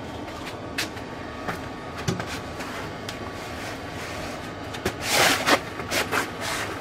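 Handling noises from work under the car: a few light clicks and knocks, then about five seconds in a louder, noisy scraping and clattering lasting a second or so, with a couple of shorter ones after it.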